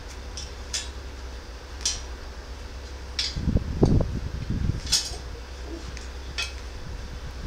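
Light metallic clicks and clinks as a wrought-iron stand and a welding gun are handled, with a few dull knocks about halfway through, over the steady low hum of a welder's cooling fan. No welding arc is running.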